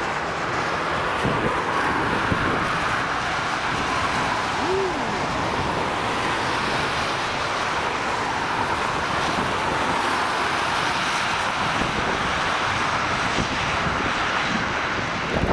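Airbus A320's CFM56 jet engines running steadily through touchdown and rollout on a wet runway, mixed with the hiss of spray thrown up by the wheels and engines.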